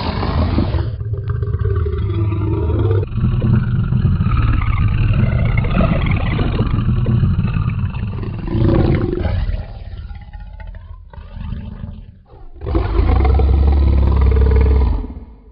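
Dinosaur roar sound effects: a long, deep roar for the first several seconds, a fading growl, then a last loud roar that cuts off near the end.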